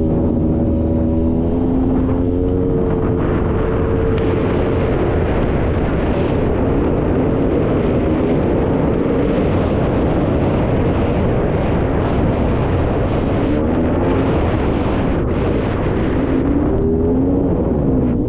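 Polaris Scrambler 400 ATV's single-cylinder two-stroke engine running under way on a trail. Its pitch rises and falls with the throttle, over a loud rush of wind and trail noise.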